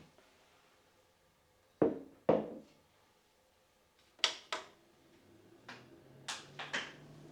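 Household handling sounds: two dull knocks, then a few sharp clicks, with a faint low steady hum coming in after about five seconds.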